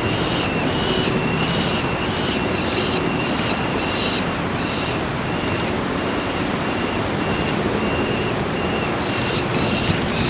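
Juvenile peregrine falcon calling a long run of short repeated 'kyak' notes, about two a second, over heavy wind noise on the microphone.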